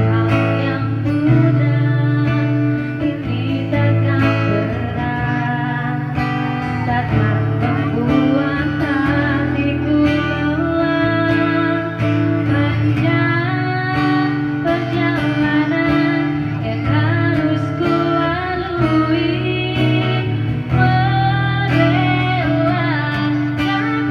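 A song played on strummed acoustic guitar, with a voice singing the melody.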